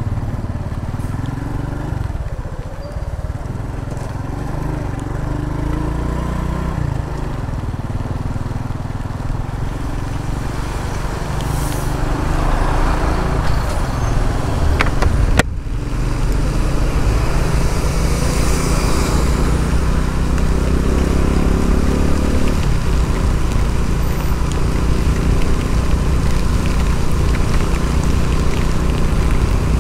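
Honda Pop 110i's small single-cylinder engine under way with a passenger aboard, its pitch rising and falling with the throttle and gear changes, over a steady rush of wind and road noise. A single sharp click about halfway through.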